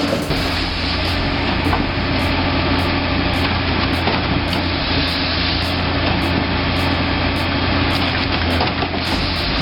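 A heavy machine's engine running steadily at a constant speed, with light regular ticks about twice a second.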